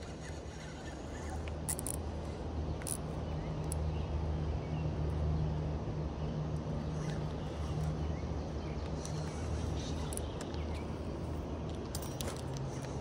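River rapids rushing in a steady, even wash, with a low steady hum underneath and a few scattered sharp clicks.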